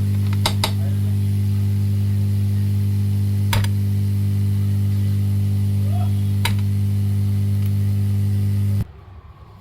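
Loud steady electrical mains hum with a few light clicks, cutting off abruptly near the end.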